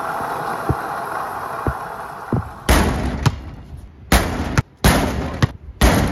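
Steady rushing spray of water on the outdoor TV enclosure fading away, then a basketball repeatedly smacking against the enclosure's protective front panel in an impact test, about six sharp bangs over a few seconds.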